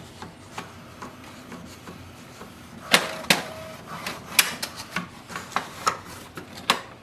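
Sheets of paper being loaded into the rear input tray of an HP DeskJet 2842e printer: the paper rustles and taps against the plastic tray, with a scattering of sharp clicks and taps, two loud ones about three seconds in and a run of them over the last few seconds.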